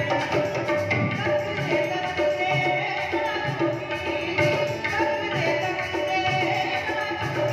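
Live Sufi devotional song: a woman singing through a microphone, backed by keyboards and a steady drum rhythm.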